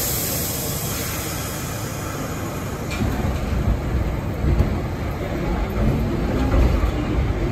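R62A subway train running on the track, heard from inside the car: a steady rumble that grows louder from about three seconds in, with a brief hiss at the very start.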